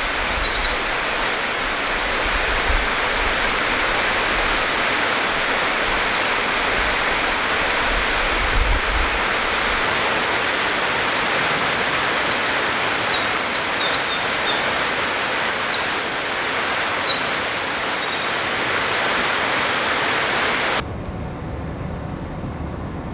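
Eurasian wren singing its long, rapid song of high trills and warbles over the steady rush of running water. One song is heard at the start and another from about 12 to 18 seconds. Near the end the water sound cuts off abruptly, leaving a quieter background.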